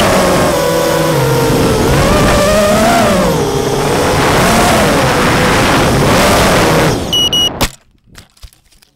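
FPV racing quadcopter's brushless motors and propellers whining, the pitch rising and falling with throttle, heard from the drone's onboard camera. Near the end a brief high beep, then a sharp knock as the drone goes down into the grass and the motors cut out abruptly.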